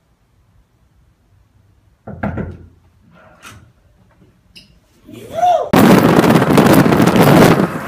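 A single sudden thump about two seconds in, then, from near the end, loud wind rushing and buffeting the microphone inside a moving car.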